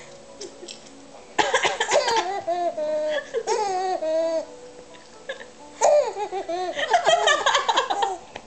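A child laughing hard in two long bouts of high-pitched, sliding laughter, with a short quieter gap between them.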